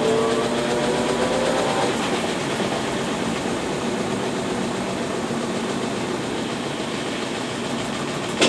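Consul Facilite 10 kg top-loading washing machine agitating a load in its wash stage. The motor hum fades out about two seconds in, leaving a steady churning noise, and there is a short click near the end.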